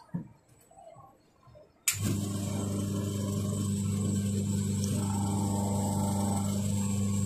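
Electric motor of a bowling ball spinner switching on with a click about two seconds in, then running with a steady hum while a cotton cloth wet with foam cleaner is held against the turning ball. Before it, faint handling sounds.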